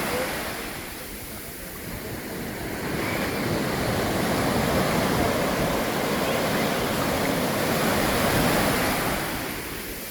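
Ocean surf: waves breaking and washing in at the shore, dipping briefly, then swelling and easing off again near the end.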